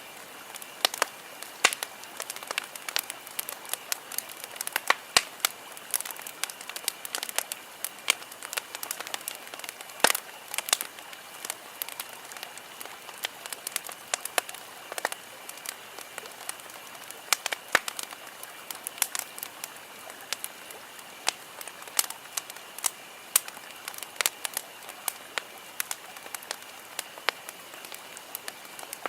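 Campfire wood burning, crackling with dense irregular pops and snaps, a few much sharper than the rest, over a steady hiss.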